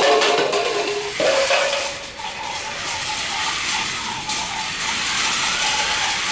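Grrrumball remote-control toy vehicles running: small electric motors whirring, with plastic rattling and clattering as they race across the floor.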